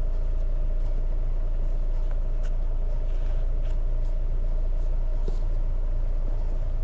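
Steady low rumble of a running vehicle, with a faint steady hum and a few light clicks scattered through it.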